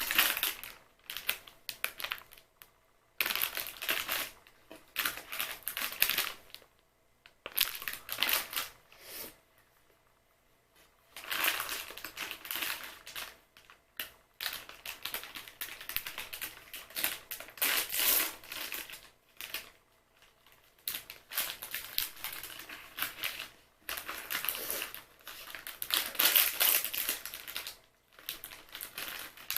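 Close-miked biting and chewing of fresh berry pie, in crisp, irregular bursts separated by short pauses.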